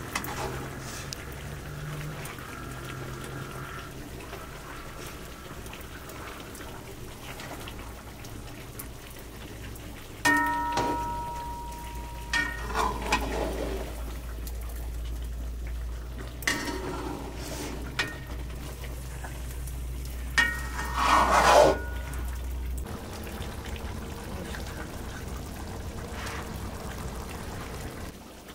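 Metal ladle stirring and scraping in a large steel wok of boiling water on a wood fire, with a steady bubbling hiss. Ringing clinks and scrapes of ladle on metal come about ten seconds in and again a little past twenty seconds, the latter the loudest.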